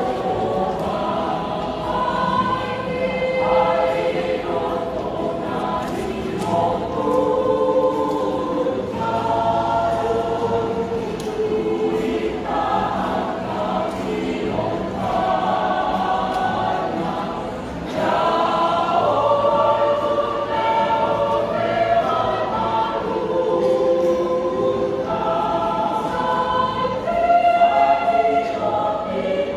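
A mixed choir of women and men singing in harmony, holding chords that change every second or so, with a brief break a little past halfway.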